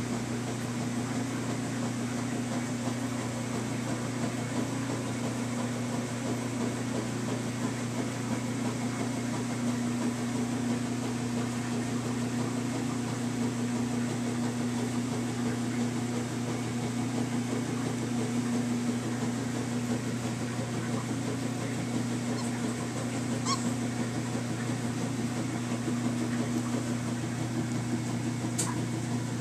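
Steady mechanical hum of a running motor, low and unchanging, with a couple of faint clicks near the end.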